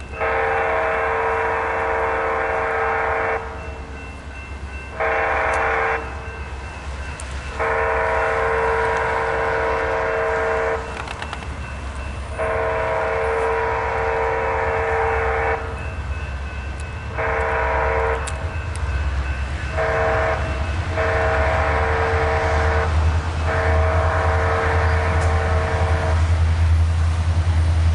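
Union Pacific freight locomotive's air horn, sounding a chord of several notes in a series of about eight long and short blasts as the train approaches. Under the horn, the low rumble of the diesel locomotive grows louder over the last few seconds.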